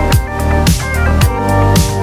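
Background music with an electronic beat: deep bass drum hits that slide down in pitch, about twice a second, over sustained melodic notes.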